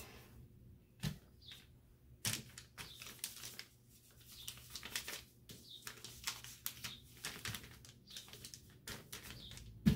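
Sublimation transfer paper rustling and crinkling under hands as it is pressed and smoothed flat over a bodysuit to work out wrinkles, in irregular soft scrapes and ticks.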